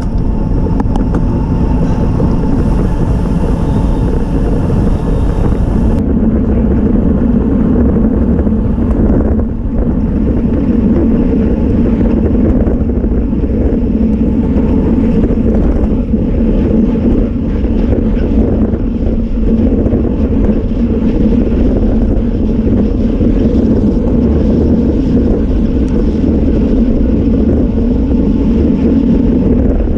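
Wind rushing over the microphone of a camera mounted on a road bike at race speed, a loud, steady rush with no letup. The highest hiss drops away about six seconds in.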